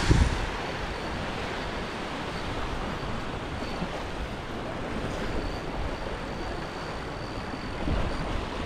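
Steady rushing noise of wind and surf, with a brief bump at the very start.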